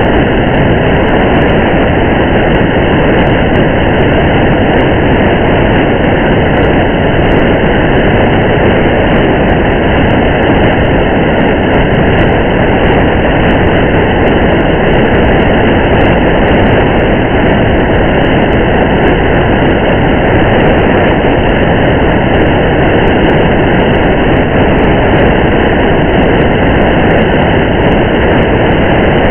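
Steady rain together with the running and tyre noise of a car driving on a wet highway, an even, dense hiss and rumble that doesn't change, with faint scattered ticks of raindrops.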